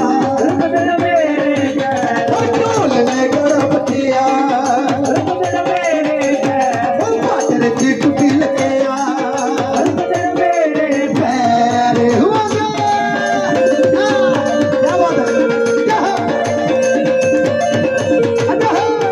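Folk music with a steady hand-drum beat under a melody line that glides in the first half and settles into held notes later.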